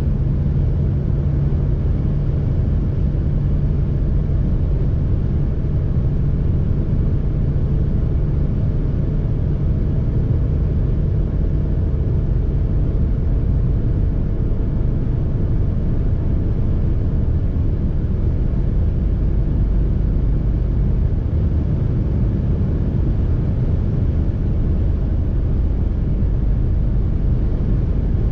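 Ford Fiesta's 1.25-litre four-cylinder petrol engine heard from inside the cabin, pulling flat out in top gear at about 4,000 rpm near the car's top speed. It makes a steady drone under wind and tyre roar, with speed rising only slowly.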